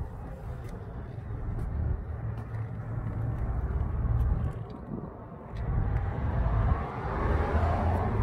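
Low rumble of street traffic, with a car passing close by near the end, rising and then falling away.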